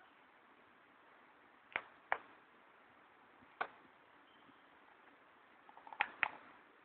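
Faint steady hiss broken by about five sharp clicks or taps, two close together about two seconds in and two more near the end, with a few smaller ticks just before them.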